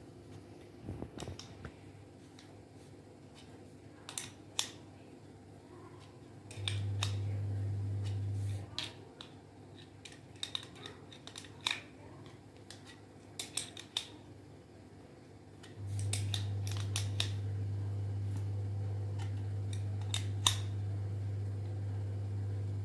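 Metal tools clicking and clinking against the ceiling fan motor and the bearing puller fitted over its ball bearing, in scattered single knocks. A steady low electrical hum comes on for about two seconds some seven seconds in, and again from about sixteen seconds on.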